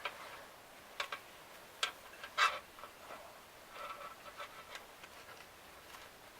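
Scattered clicks, taps and light scrapes of synthetic winch rope being handled and wrapped around a winch drum by hand. A sharper knock comes about two and a half seconds in, and a run of small ticks follows about a second later.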